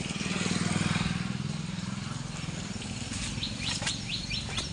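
A motor vehicle's engine passes, loudest about a second in and fading over the next couple of seconds. From about three seconds in, a bird calls in a quick run of repeated high chirps, about three a second.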